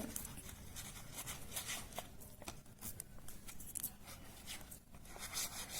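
Paper being handled while gluing folded paper circles: light rustling and scattered small ticks, with a denser rustle about five seconds in.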